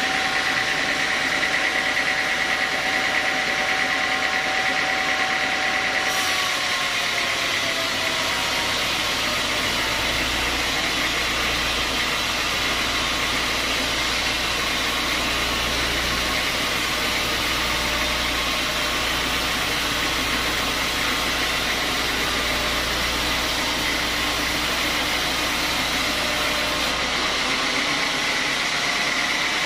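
Home-built band sawmill running, its blade sawing lengthwise through a large log on the carriage: a steady loud mechanical rasp with a constant high tone. A deeper hum comes in about eight seconds in and drops away near the end.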